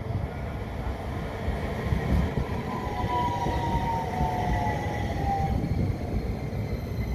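Tram pulling in along the platform: a steady low rumble of wheels on rail, with a whine that slides down in pitch from about three seconds in as it slows for the stop.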